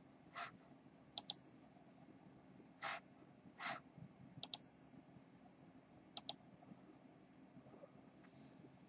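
Computer mouse button clicked three times, each a quick double snap of press and release, with a few short soft hisses in between.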